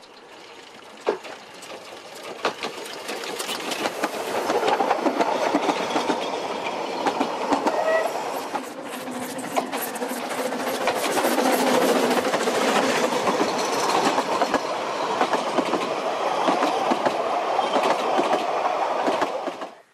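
Narrow-gauge steam train approaching and passing close by, getting louder over the first few seconds, with the wheels clicking and clattering as the carriages go by. The sound cuts off abruptly near the end.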